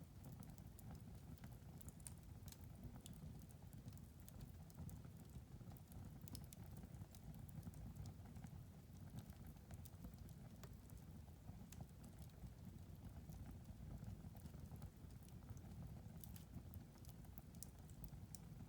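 Wood fire crackling in a fireplace, with faint, irregular sharp pops and ticks over a low, steady rumble of the flames.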